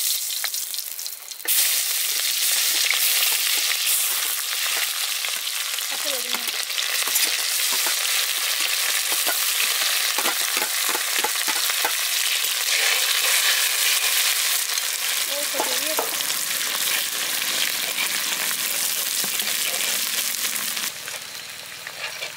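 Food frying in hot oil in a black kadai over a wood fire, a steady sizzling that starts suddenly about a second and a half in and dies down near the end.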